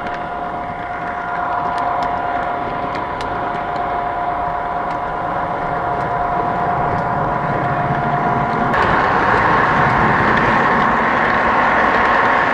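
O-gauge model diesel locomotive and its cars running steadily along the track: a steady mechanical hum with a couple of faint clicks. About nine seconds in, the hum gives way to a louder rushing sound.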